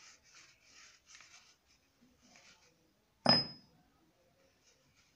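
Faint rubbing and wiping as the steel kick shaft parts of a Honda CD 70 are cleaned by hand. About three seconds in, one sharp metallic clink with a short high ring as a steel part is set down.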